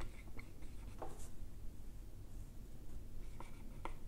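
Dry-erase marker writing on a whiteboard: faint strokes of the felt tip with a few light clicks as it touches and lifts.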